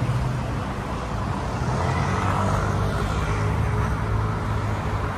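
Car engine running close by, over a steady hum of road traffic.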